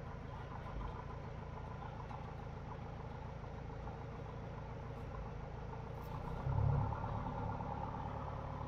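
Cassutt 111M's four-cylinder fuel-injected aircraft engine and propeller idling steadily while taxiing. A brief louder low rumble comes about six and a half seconds in.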